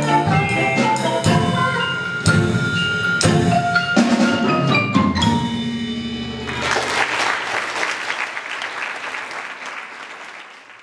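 Children's percussion ensemble playing the closing bars on marimbas, xylophones and drum kit, the last notes ringing on about five seconds in. Applause follows from about six and a half seconds and fades out at the end.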